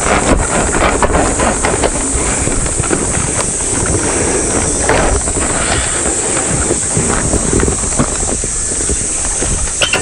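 Waterfall pouring close by: a loud, steady rushing of falling water that doesn't let up.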